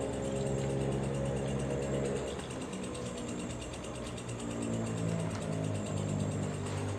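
Background music: sustained low drone-like tones that slowly shift in pitch, with no speech.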